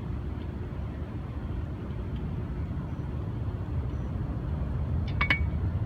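Steady low rumble of road traffic, with a brief clatter of sharp clicks about five seconds in.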